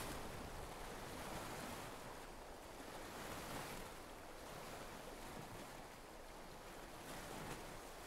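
Small waves washing onto a shore, a soft rush of water that swells and fades every few seconds.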